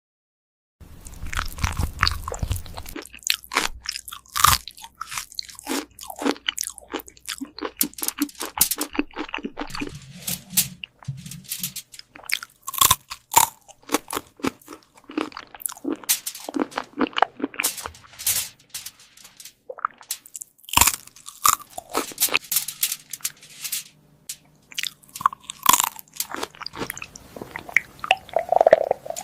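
Cat chewing crunchy food: rapid, irregular crunches and bites, starting about a second in.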